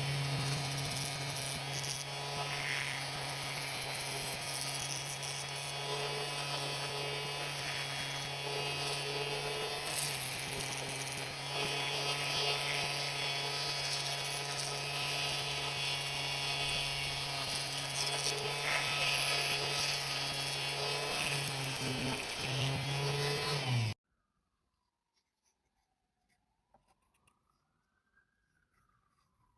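An electric power tool's motor running steadily, a constant hum with a high hiss over it, which cuts off abruptly near the end.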